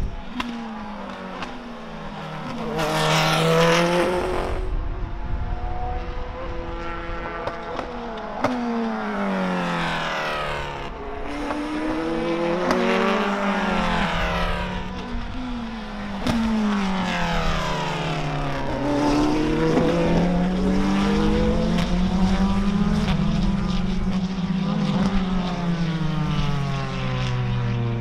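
Race cars passing at speed one after another, chiefly the Corvette C8.R with its 5.5-litre flat-plane-crank V8. Each engine note falls in pitch as the car goes by, with sudden breaks at gear changes.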